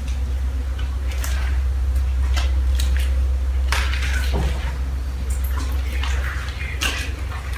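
Footsteps climbing a concrete staircase littered with debris: irregular scuffs and crunches over a low, steady rumble.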